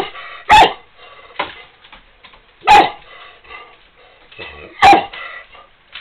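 Three short, sharp vocal bursts about two seconds apart, with faint scuffling and knocking in between.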